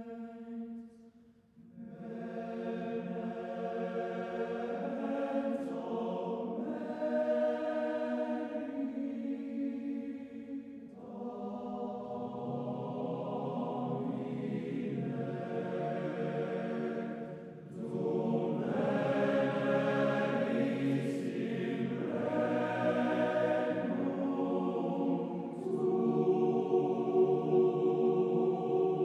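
Choral music: voices singing slow phrases of long held notes, each phrase several seconds long, with short breaks between them.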